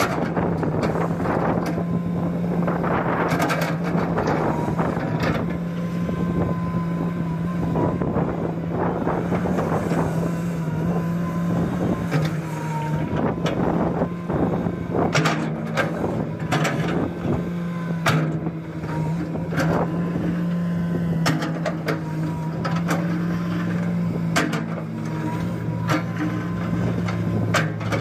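Komatsu PC210 hydraulic excavator's diesel engine running steadily under digging load, with irregular knocks and scrapes from the bucket working the sand.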